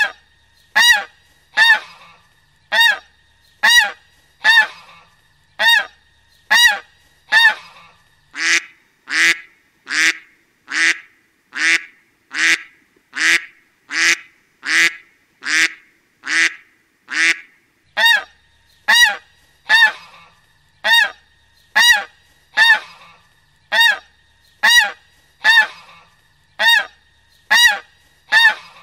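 Squeaky toy squeaked over and over, short honk-like squeaks about once a second. From about a third of the way in to past the middle the squeaks turn lower and rougher, then go back to the clearer, higher squeak.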